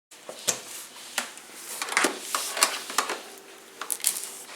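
A series of sharp clicks and knocks, five or six spread across a few seconds, from hard plastic parts of the vacuum cleaner and its attachments being handled.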